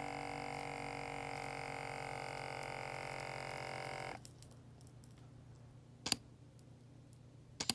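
Automatic blood pressure monitor's cuff-inflation pump running with a steady hum as the arm cuff pressurises to about 160 mmHg, then stopping abruptly about four seconds in. Two sharp clicks follow as the cuff pressure starts to fall.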